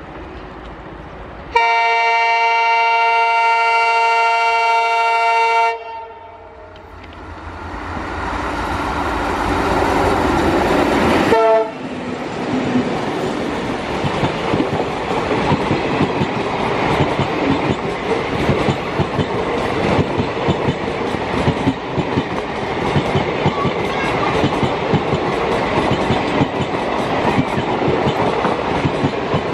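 WDG-3A diesel locomotive's multi-tone horn sounding one long, shrill blast of about four seconds. The locomotive then grows louder as it approaches and passes. After it, the coaches roll by with continuous wheel clatter.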